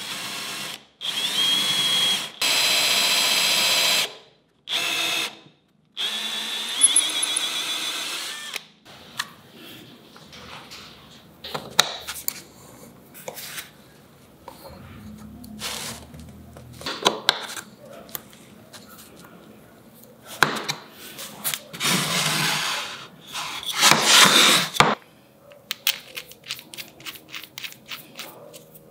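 Cordless drill boring into a beech-wood block in several short bursts, its whine rising as it spins up. Later come quieter clicks and scrapes of hand tools on wood, a few more loud bursts, and a run of quick clicks near the end.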